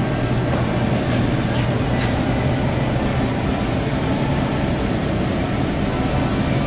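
Steady supermarket background noise: a constant low hum with an even hiss over it and a few faint clicks.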